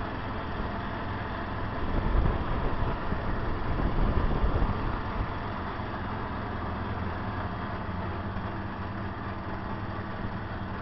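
Car engine and road noise heard from inside the moving car: a steady low rumble, louder for a couple of seconds about two seconds in.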